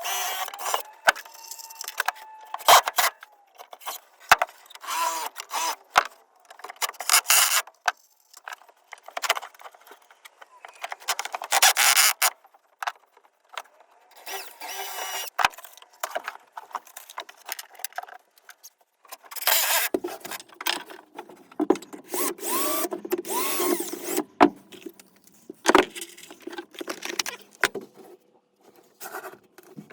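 Wooden boards being handled and worked: irregular scraping and rubbing with sharp knocks, and short squeaks about two-thirds of the way in.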